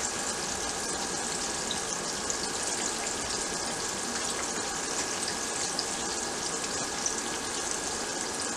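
Flour-dredged chicken breast fillets frying in hot oil in a skillet: a steady sizzle with small scattered crackles.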